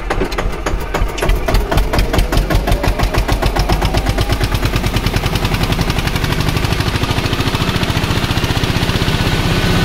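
Eicher 241 tractor's single-cylinder diesel engine chugging under load as it pulls a disc harrow. Its rapid firing beats quicken over the first few seconds as it picks up speed, then hold steady.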